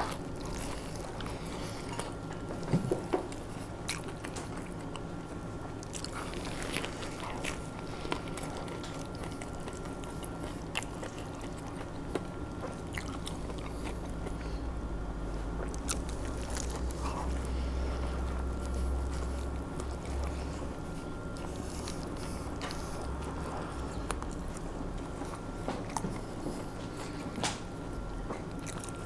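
A person biting into and chewing a large hamburger: scattered crunching clicks, the loudest about three seconds in, over a steady hum, with a low rumble that swells for several seconds in the middle.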